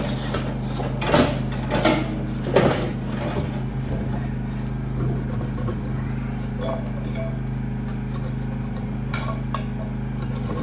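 Heavy metal engine parts knocking and clinking a few times in the first three seconds, over a steady low hum.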